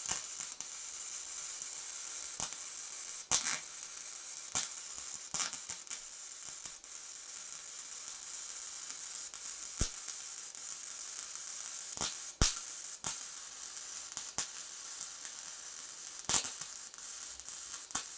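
MIG welding arc on 304 stainless steel, fed with 1.2 mm 308L solid wire under 100% argon shielding gas at about 210 A, hissing steadily with scattered sharp crackles and pops.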